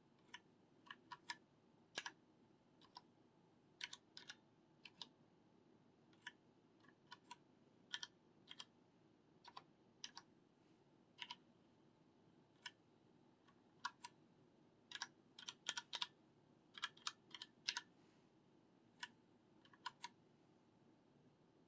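Keys of a Cherry MX Board 3.0S RGB mechanical keyboard being pressed: irregular sharp key clicks, some single and some in quick runs of several keystrokes.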